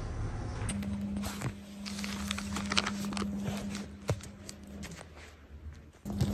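Hands opening and handling a package: scattered small taps, clicks and rustles, over a steady low hum.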